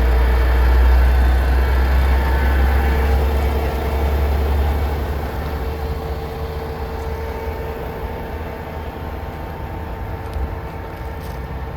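Diesel engine of a Ford Cargo 4142 concrete mixer truck running with a steady low rumble and a constant hum. It is loudest in the first few seconds and eases a little after that.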